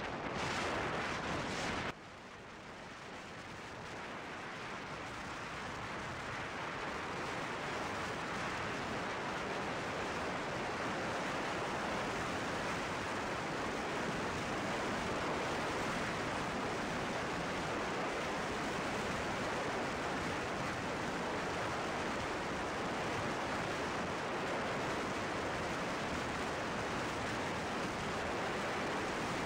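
Wind rushing over the microphone of a camera mounted on a moving motorcycle, a steady noise with no engine note standing out. It drops abruptly about two seconds in, then builds back up gradually over the next several seconds and stays steady.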